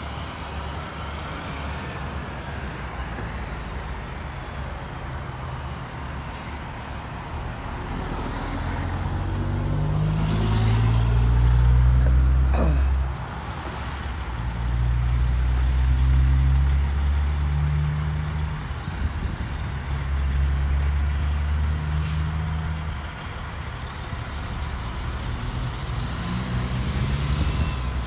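Heavy truck engine pulling away and accelerating through several gears, its pitch climbing and dropping back at each shift. It starts against a steady traffic rumble, is loudest about halfway through, and fades toward the end.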